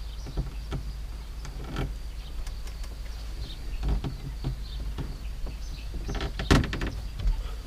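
Scattered knocks, scrapes and rustles in a wooden rabbit hutch as hands work at its back wall and rabbits shuffle over the boards and wire mesh. The loudest cluster of knocks comes about six and a half seconds in.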